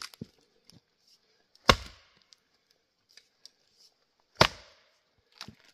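Axe striking tamarack firewood rounds to split them: two hard chops about two and a half seconds apart, each with a brief cracking tail, with small knocks of wood between.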